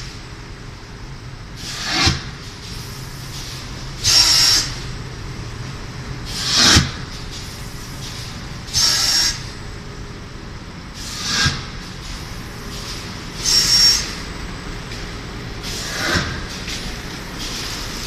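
Paper-pulp egg tray forming machine running in its cycle: a steady low hum broken by a short burst of hissing air about every two and a half seconds. Every other burst starts sharply with a whistling edge; the ones between swell up and end in a knock.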